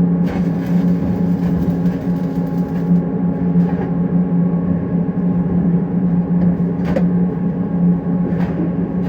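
Steady, loud mechanical hum of welding-shop machinery, with a hiss during the first few seconds and a few sharp clicks.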